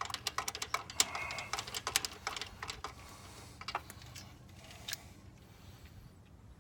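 Rapid light clicks and metallic ticks from hand work on spark plugs and tools. They are dense for about three seconds, then thin out to a few scattered clicks.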